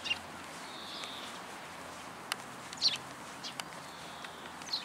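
Small birds chirping in short high calls, the loudest about three seconds in, over a steady outdoor hiss, with a couple of sharp clicks.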